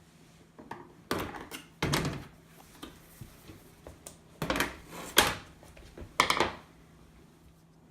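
Plastic bottom cover of a Smeg dishwasher being worked loose from its clips: a series of about five knocks and clatters spread over several seconds.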